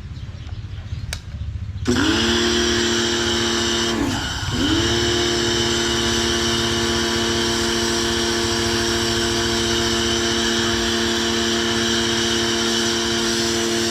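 Kawasaki ACK-302 electric high-pressure washer starting up about two seconds in and running with a steady motor whine. Its pitch dips briefly and recovers a couple of seconds after it starts.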